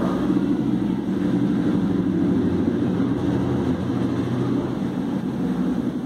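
A steady low mechanical drone that holds an even level throughout.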